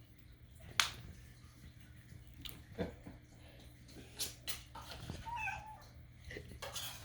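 A kitten's short, wavering meow about five seconds in, among several sharp clicks and taps, the loudest near the start.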